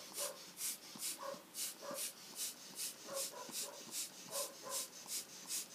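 Tim Holtz Distress Marker Spritzer squeezed over and over, giving short, even puffs of air, about two and a half a second, each with a faint click of the trigger. The puffs blow across the marker tip, spattering ink as speckles.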